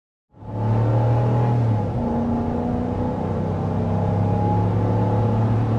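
Ram 1500's Hemi V8 engine pulling as the truck drives, heard from inside the cab, with a low, steady engine note that changes about two seconds in as the 8-speed automatic works through the gears.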